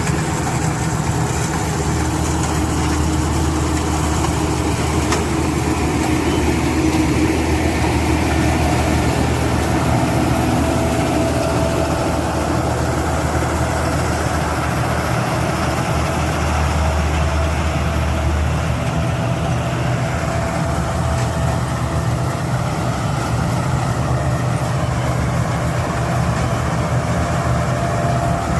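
Rice combine harvester's engine running steadily with a low hum. The deepest part of the hum drops away about two-thirds of the way through.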